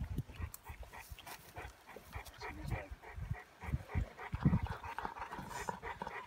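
Bull mastiff panting quickly and steadily, about four or five breaths a second, with occasional low thumps.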